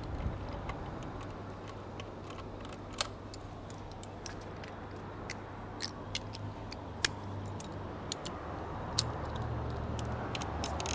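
Scattered metallic clicks and clinks of hand tools and loose bolts being picked up and handled: a socket ratchet, bolts and brackets on a concrete floor. The clicks come irregularly, one sharper clink about seven seconds in, over a low steady hum.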